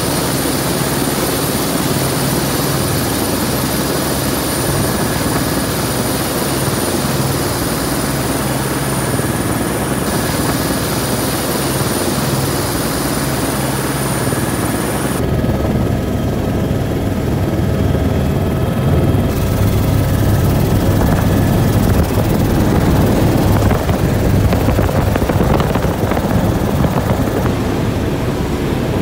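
Helicopter engine and rotor running, heard from inside the cabin: a steady, loud din with a thin high whine over it. About halfway through, at an edit, it turns into a heavier, slightly louder rumble.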